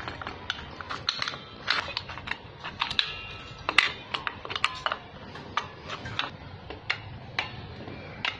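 Irregular sharp metallic clicks and clinks from a motorcycle drum-brake assembly being handled: the steel brake shoes, return springs and backing plate knocking against each other, some clinks ringing briefly. Near the end the brake drum is fitted over the shoes.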